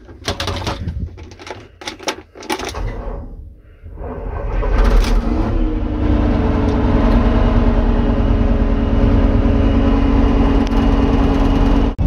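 A few clicks and clunks of cab controls, then about four seconds in the Claas Lexion combine's diesel engine starts, rises in level and settles into steady running.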